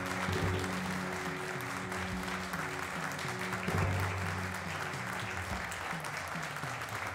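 Audience applause mixed with background music that holds steady low notes.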